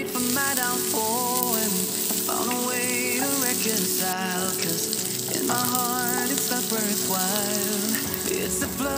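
Sliced red onions and cilantro sizzling in hot oil in a frying pan, a steady hiss, under background music with a wavering melody.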